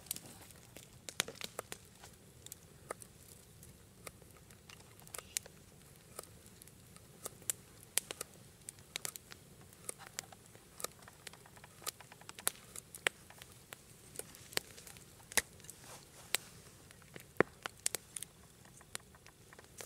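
Knife slicing through a dry sausage on a wooden log, with scattered irregular sharp clicks and taps.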